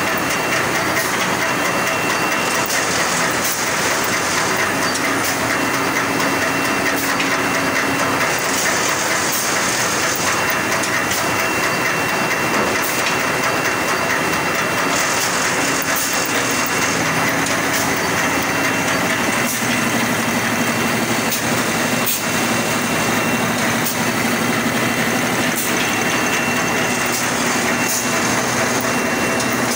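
Automatic 5-ply corrugated board pasting machine running: a steady mechanical din with scattered light clicks. A low hum joins for a few seconds early on and again from about halfway through.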